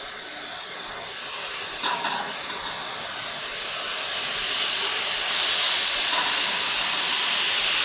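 Automatic belt-lifting system of a vegetable bubble washing machine operating: a steady hissing noise that grows louder, with a few clicks about two seconds in and a stronger, sharper hiss from about five seconds in.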